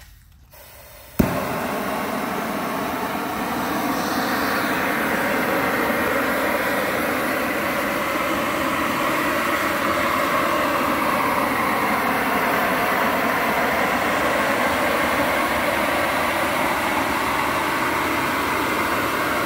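Propane shrink-wrap heat gun lighting with a sharp pop about a second in, then burning with a steady, loud rush of flame as it heats the pallet's shrink film.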